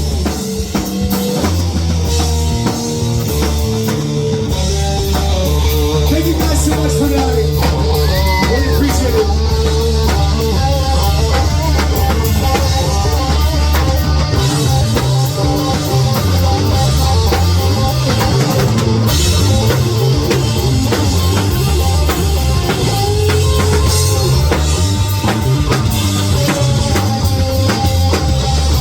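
Live band playing a rock song: a drum kit keeps a steady beat under bass and guitar.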